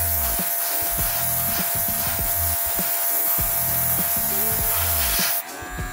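Airbrush spraying paint, a steady hiss of air driven by an MS-020 cordless mini compressor whose motor gives a constant thin whine. About five and a half seconds in, the spray hiss cuts off and the compressor keeps running.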